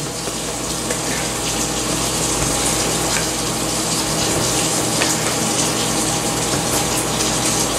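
Water running steadily from a tap, a continuous even hiss.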